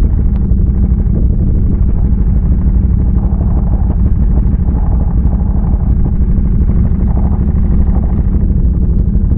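ATV engine running under way, mixed with wind rumbling on the microphone; a steady, heavy low noise throughout.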